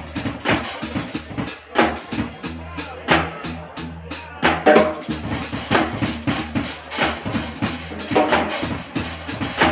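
Live funk band jamming: two drum kits playing a busy groove of kick, snare and cymbals over electric bass guitar lines.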